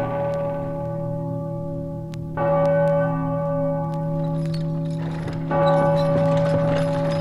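Instrumental music without vocals: a ringing, bell-like tone is struck and left to sustain, with a fresh strike about two and a half seconds in and another about five and a half seconds in, over a steady low drone.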